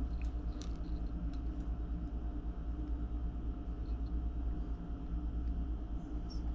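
Faint, light clicks of fingers wiggling the tiny metal rocker arms on a Howin L6 model inline-six engine's cylinder head, checking that each valve moves freely, over a steady low hum.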